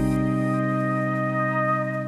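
Background music holding one sustained chord, with no beat.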